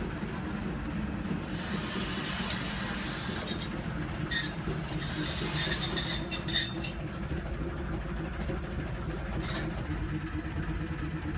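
Small diesel shunting locomotive running steadily as it hauls a short train slowly past, with a hiss early on followed by a steady high wheel squeal and clicking of wheels over rail joints for a few seconds in the middle.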